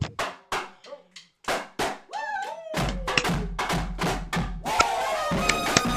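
Marching band starting up: a drum cadence of sharp, evenly spaced strikes, then about three seconds in the full band comes in with a deep bass and, near the end, brass horns.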